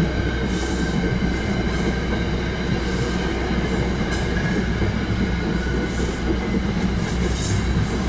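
Steady mechanical running noise of a moving vehicle: a low drone under an even rushing noise, with several faint steady whining tones above it.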